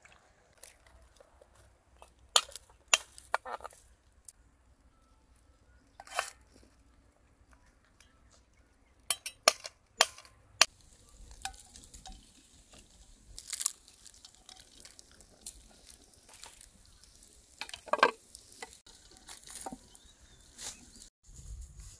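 Cooking sounds: scattered knocks and clinks of utensils against pans and dishes, and from about halfway a steady hiss of food frying in oil.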